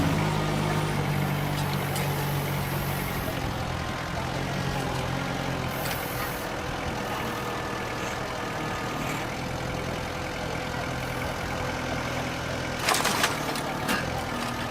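A heavy machine's engine running steadily, with a short clatter of knocks near the end.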